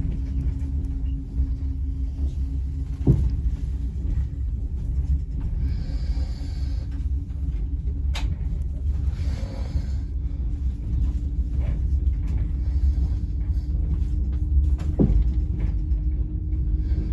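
Steady low rumble and hum of a moving train heard from inside the carriage, with a couple of short knocks.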